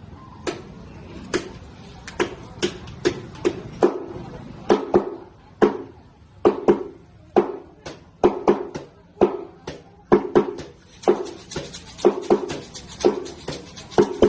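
Homemade percussion instrument being struck in a loose, uneven rhythm, about two hits a second. Each hit is a sharp knock with a short ring after it.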